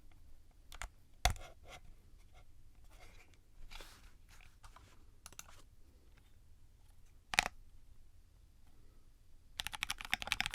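Keystrokes on a gummy O-ring mounted 60% mechanical keyboard with Gateron Cap V2 milky switches on a Delrin plate in a wood Tofu case: a few scattered single key presses, one louder than the rest, then fast typing begins near the end.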